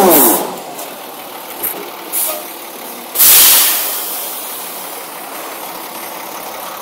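Diesel tractor-trailer stuck in snow, its revving engine dropping away just after the start as the drive wheels stop spinning. It then runs steadily at low revs, with a sudden loud hiss about three seconds in that fades over about a second.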